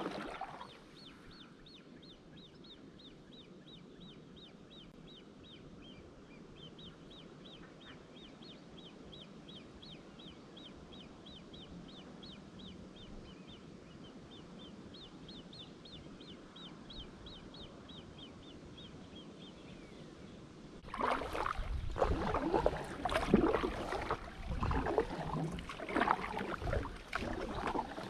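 A bird repeats a short, high, falling chirp about four times a second, in three long runs over a quiet background. About three-quarters of the way through, loud irregular splashing of kayak paddle strokes in the water takes over.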